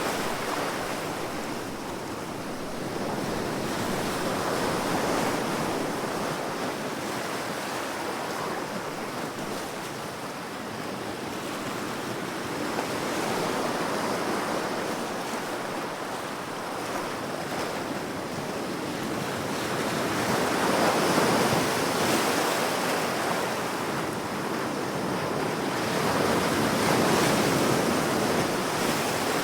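Ocean waves breaking and washing on a shore, a continuous surf rush that swells and recedes every several seconds, loudest about two thirds of the way through.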